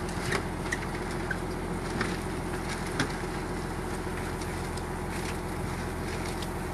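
Fishing boat's engine running steadily at an even pitch, with a few light knocks from gear on deck as the drift net is paid out.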